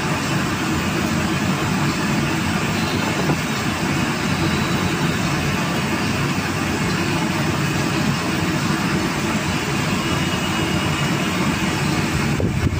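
Steady machine-shop background noise: a continuous motor rumble with hiss that does not change.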